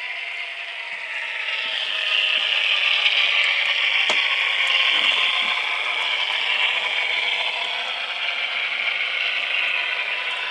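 Diesel locomotive engine sound from an HO-scale AC4400 model's QSI sound decoder, played through its tiny onboard speaker: a thin, steady diesel rumble with no bass. It grows louder about two seconds in.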